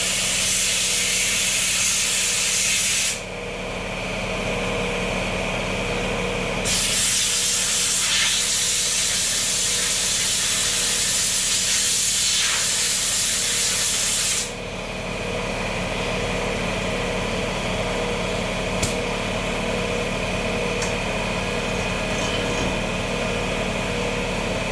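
Compressed-air blowgun blowing air through a drilled carburetor float to force the flushed-in water out of it. There are two long hisses: the first stops about three seconds in, and the second starts about seven seconds in and lasts about eight seconds. A steady machine hum runs underneath.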